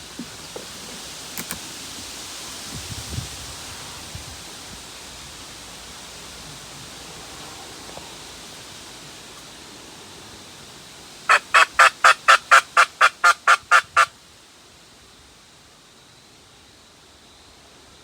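Turkey yelping: a loud run of about a dozen evenly spaced notes, about five a second, lasting under three seconds about two-thirds of the way in, over faint outdoor hiss.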